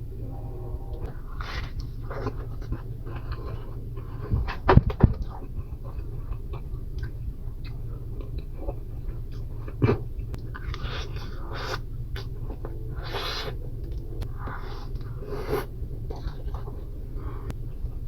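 Person biting and chewing a grilled macaroni-and-cheese sandwich, with scattered short mouth noises over a steady low hum. A few louder knocks come about four to five seconds in and again near ten seconds.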